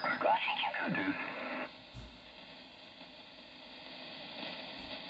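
Kenwood TS-590SG transceiver on upper sideband, heard through its extension loudspeaker as the tuning knob is turned. A voice signal on the 20 m band slides in pitch and sounds garbled for under two seconds, then breaks off, leaving a low hiss of band noise.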